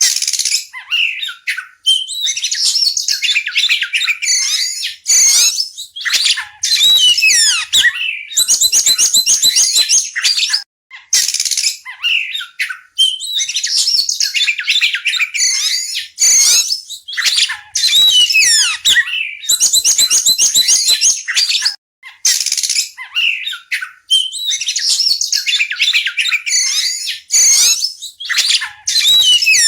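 Oriental magpie-robin singing: a long, varied run of high-pitched whistles, rapid trills and repeated chattering notes, broken by brief pauses every few seconds.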